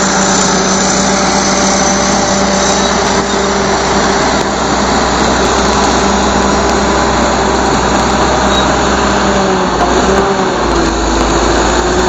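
Caterpillar D8H bulldozer's diesel engine running steadily and loudly. Its pitch sags slightly near the end, then holds.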